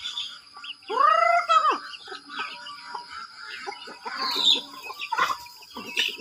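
A flock of chickens and chicks feeding, with scattered clucks and high peeps and one louder drawn-out call, rising then falling, about a second in.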